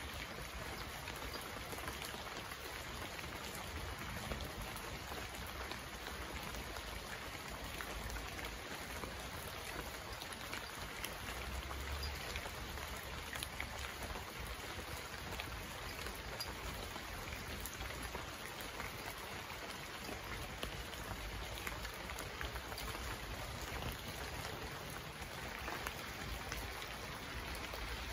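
Steady rain falling: a dense, even hiss of rain with many small, sharp drop hits over a low, steady rumble.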